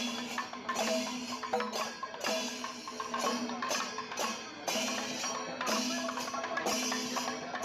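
Background music with a quick percussive beat of short knocks, a held low note underneath and short melodic notes above.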